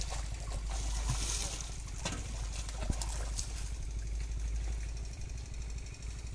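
Water splashing and sloshing around people wading through a pond, under a steady low wind rumble on the microphone that eases about five seconds in.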